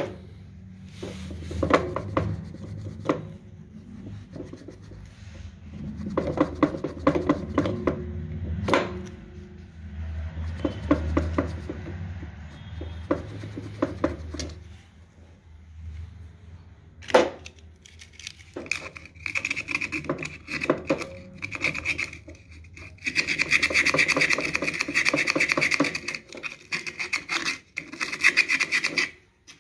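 Sandpaper rubbing and scraping on the parts of an old contactor being cleaned, in bursts of quick strokes, turning to a longer, steady rasping near the end.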